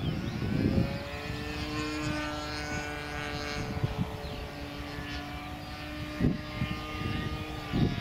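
O.S. Max glow engine of a radio-controlled Extra 300S aerobatic model plane buzzing in flight, a steady pitched drone that rises a little about a second in. Low rumble and a couple of thumps from wind on the microphone, heaviest near the start and the end.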